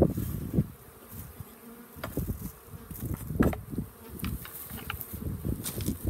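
Honey bees buzzing close around the microphone, rising and falling as they fly past, with a brief bump about three and a half seconds in.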